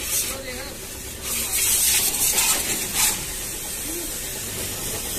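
Car-wash water spray hissing in bursts of about a second each, with faint voices in the background.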